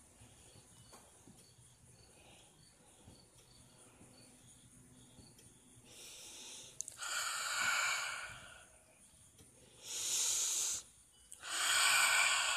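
Three loud, breathy, wheezing hisses of breath from a person, the first about six seconds in and the other two close together near the end, made as the frog puppet's voice. Before them there is only a faint background with a soft chirp about twice a second.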